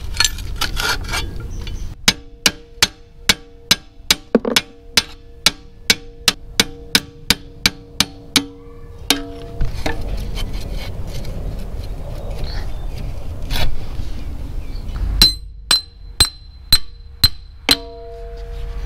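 Hammer blows on the steel parts of a tractor's rear axle and transmission housing, a steady run of ringing metallic strikes about three a second. A second shorter run comes near the end, the strikes ringing higher.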